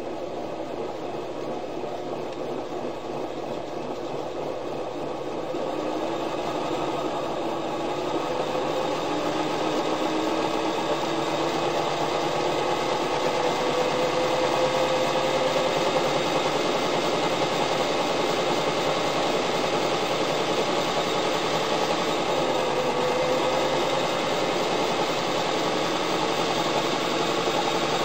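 1937 Singer Model 127's "B" motor driving the bobbin winder, the handwheel clutch loosened so only the winder turns: a steady motor whir with a whine that rises in pitch and grows louder over the first dozen seconds or so, then holds.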